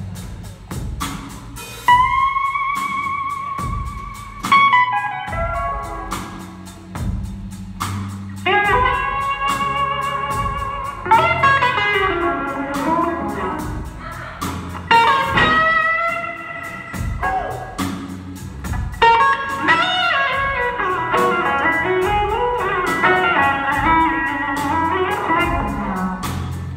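Live blues band playing a slow blues, with an electric guitar soloing in long, sustained notes that bend and slide in pitch over drums and bass.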